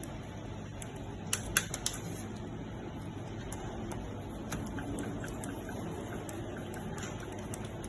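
A quick cluster of sharp clicks and taps about a second and a half in, then a few fainter ticks, over a steady background hum: small hard parts and tools being handled during the repair of a fusion splicer.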